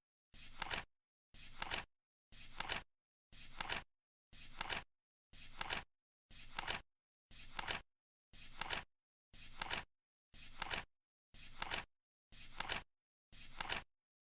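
Flip-clock timer turning over once a second, fourteen times: each turn is a short flap that builds to a sharp click, with silence between.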